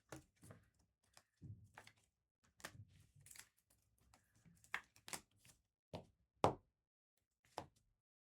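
Trading cards and packs being handled on a table: a string of irregular light taps and knocks, the loudest about six and a half seconds in.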